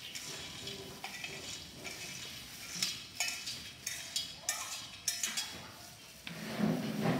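Metal spoon scraping and clinking against an enamel colander as seasoned cashew nuts are tipped out and slide onto paper towels, in a series of irregular scrapes and clinks.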